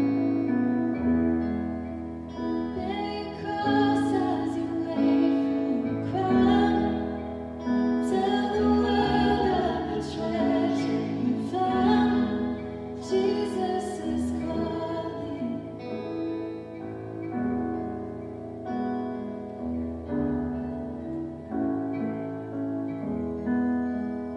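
Contemporary worship band playing a song: acoustic guitars and keyboard under a woman's singing voice. A little past halfway the singing stops and the band plays on more softly with long held chords.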